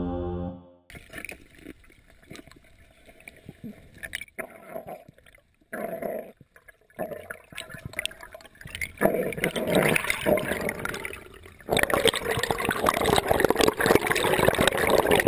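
Background music ends in the first second. Then comes underwater water noise picked up by an action camera in its housing: faint bubbling and gurgling with scattered clicks, growing louder about nine seconds in and again near the end.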